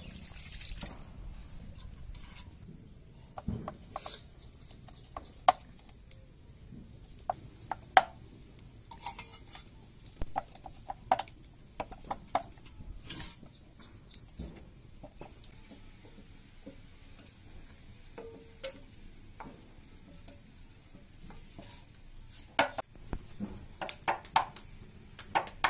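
Scattered sharp clinks and taps of metal utensils on aluminium idli plates. Near the end comes a quick run of taps as eggs are cracked against a knife blade.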